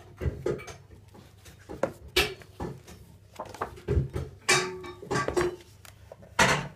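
Pages of a hardback book being turned by hand: a series of sharp paper flaps and rustles, a few of them loud, as the pages are leafed through.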